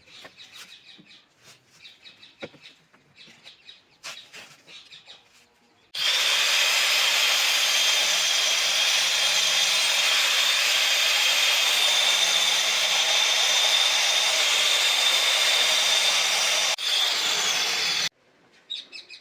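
Birds chirp faintly. About six seconds in, a handheld power tool starts abruptly and runs steadily and loudly for about twelve seconds, with a brief dip shortly before it cuts off.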